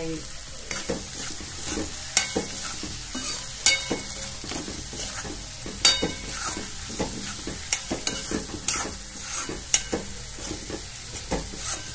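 Steel spoon scraping and tapping against a kadai at irregular intervals as chopped vegetables are stirred and mixed in hot oil, over a steady sizzle.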